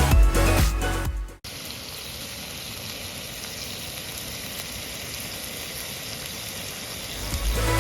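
Dance music cuts off about a second and a half in, giving way to a steady hiss, and music fades back in near the end.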